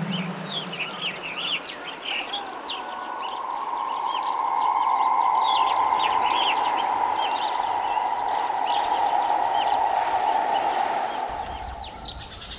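Small birds chirping in many short, quick calls over a steady background hiss. A steady mid-pitched drone joins about two seconds in and fades away near the end.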